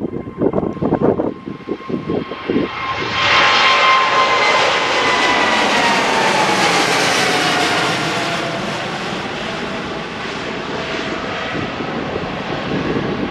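Boeing 777-200's twin GE90 turbofans at takeoff thrust as the jet lifts off and climbs overhead. Gusts of wind hit the microphone at first; about three seconds in, the jet noise swells loud, with a high whine that slowly falls in pitch as the plane passes over and draws away.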